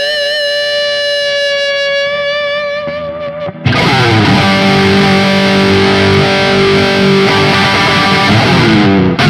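Hofner 4575 electric guitar played through distortion: a held note with vibrato that fades out, a few short strums, then a loud distorted chord struck about three and a half seconds in and left ringing until it is cut off near the end.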